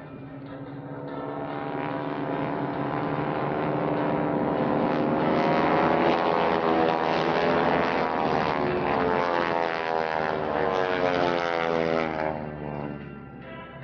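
A propeller-driven aerobatic aircraft's engine passing by, growing louder to a peak in the middle and fading near the end, its pitch bending downward as it goes past.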